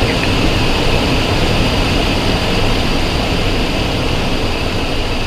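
Steady cockpit noise of a Cessna Citation XLS climbing after takeoff: the hum of its twin Pratt & Whitney PW545 turbofans mixed with the rush of air over the cabin, loud and even throughout.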